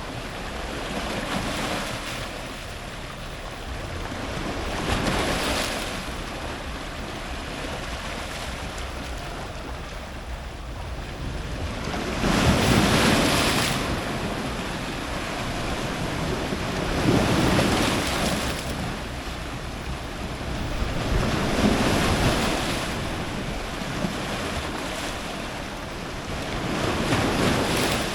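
Strong ocean surf breaking on rocks at the waterline: a steady wash of water with a wave surging in every few seconds, about five in all, the loudest about twelve seconds in.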